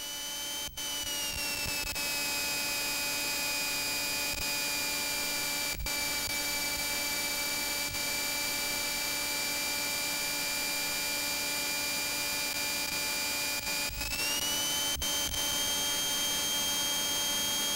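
Light aircraft's engine and cockpit noise recorded through the intercom feed: a steady hiss with a high, jet-like whine. The whine drops in pitch about a second in and climbs again about 14 seconds in as power comes up on the runway for takeoff.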